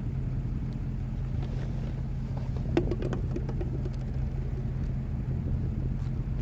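Steady low rumble of an idling vehicle engine, with a short run of sharp metallic clicks and taps about three seconds in.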